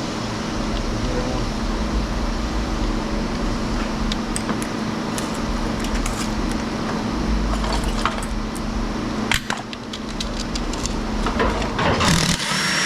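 Light metallic clinks and rattles of scrap metal being handled over a steady background hum, with a brief louder burst near the end.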